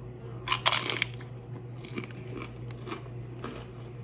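A crunchy bite into a tortilla-chip nacho loaded with cheese and ground beef about half a second in, followed by softer crunchy chewing, about two chews a second.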